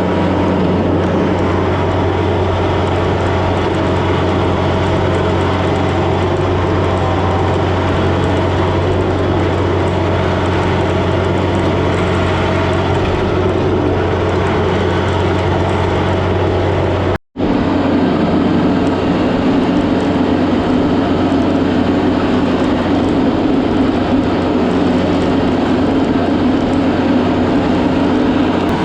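Kubota tractor's diesel engine running steadily under load while it drags a log. There is a brief dropout about two-thirds of the way through.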